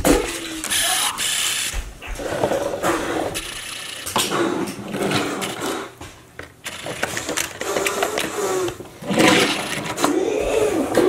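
Hard plastic toy car-carrier case being slid open and small die-cast toy cars handled against it: a run of plastic clicks, knocks and rattles.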